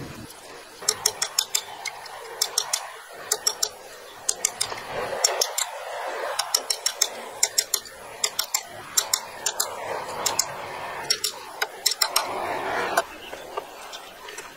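Light metallic tapping and clinking in quick bursts of sharp ticks, steel parts knocked against each other at a bench vise, with stretches of scraping metal in between.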